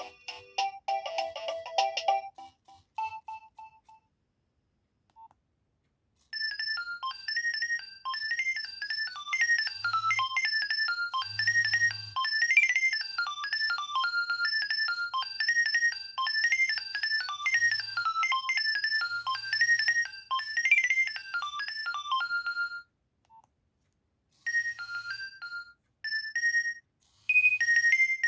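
Nokia 2300 ringtones: one melody ends a couple of seconds in, then after a short silence a fast, bright tune of quick high notes plays for about sixteen seconds and stops, and another ringtone begins near the end.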